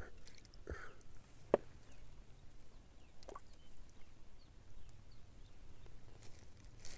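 Quiet background with a few scattered short clicks, the sharpest about one and a half seconds in.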